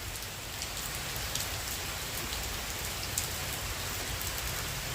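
Steady tropical-storm rain falling and hissing on surfaces, with scattered individual drops ticking.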